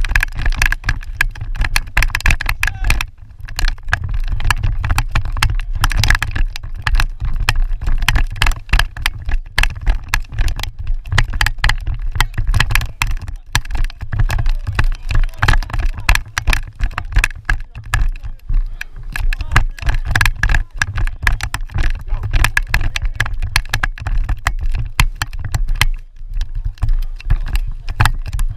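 Wind buffeting the camera microphone: a heavy, constant low rumble with dense crackling that rises and falls in gusts.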